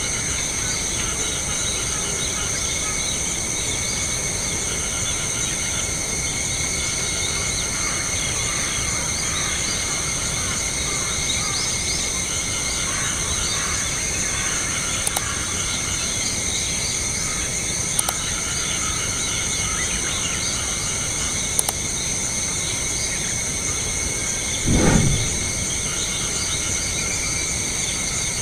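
Steady outdoor nature ambience: a continuous high insect chorus. About twenty-five seconds in, a brief low rumble.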